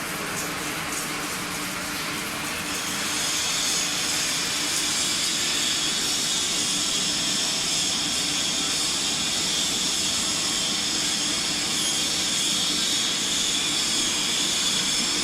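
CNC metal spinning machine running: a steady hissing noise with high whining tones, with light ticking at first, growing louder about three seconds in.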